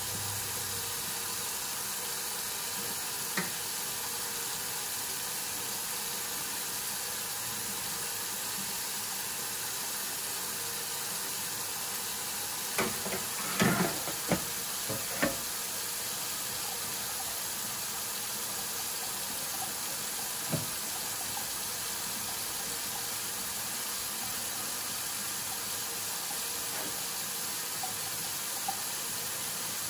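Kitchen tap running steadily into a stainless steel sink and over fish lying in it. About halfway through comes a short cluster of knocks and clatters as a fish and the plastic cutting board are handled, with a few single knocks elsewhere.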